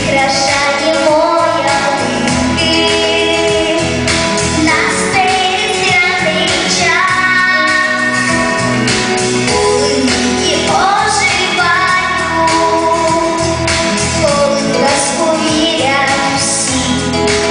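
A female vocalist singing a blues song with held notes that bend in pitch, over an instrumental backing track with a steady beat.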